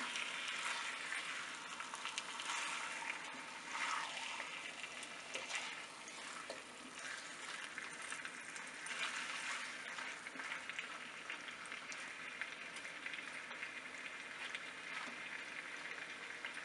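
Raw chicken pieces sizzling steadily in hot oil in a non-stick wok, fried on fairly high heat to dry off their juices. Now and then a silicone spatula stirs them, adding a few scraping, shuffling sounds.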